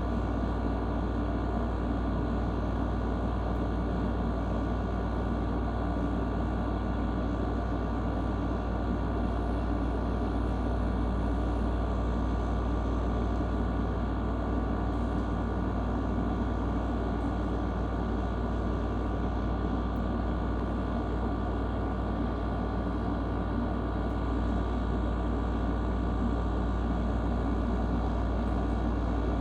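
Steady low rumble with a faint steady hum above it, unchanging throughout, with no thunder claps or other sudden sounds.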